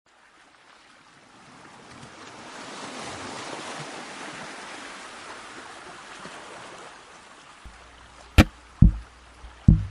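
Opening of a music track: a rushing noise that swells up and fades away. A low hum and three sharp beats come in near the end as the music starts.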